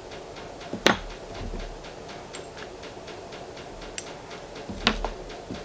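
Small hard parts of a scuba regulator first stage being handled at a workbench: a sharp knock about a second in, a light click near four seconds and another knock just before the end. A faint, even ticking of about four ticks a second runs underneath.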